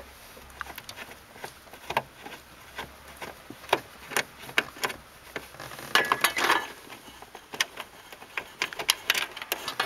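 Screwdriver working a screw out of the side of a plastic center console: irregular sharp clicks and ticks, with a busier stretch about six seconds in.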